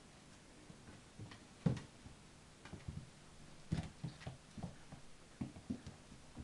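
Black Goldendoodle puppies romping on a hard floor and a towel: scattered clicks and taps of claws and paws, with two louder knocks about two seconds apart.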